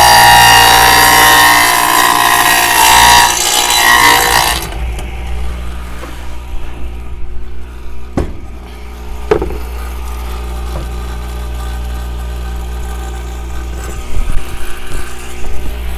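Radial arm saw with a dado blade cutting a groove across a plywood board for about the first four and a half seconds. After that the saw motor runs on with no load, a steady hum, with two sharp knocks around the eighth and ninth seconds.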